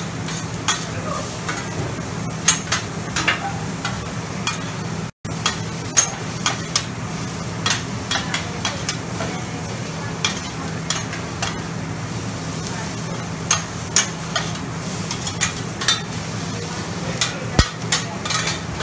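Metal spatulas scraping and clacking irregularly on a Mongolian barbecue flat-top griddle as food is stir-fried, over a steady sizzle and a low hum. The sound cuts out for a moment about five seconds in.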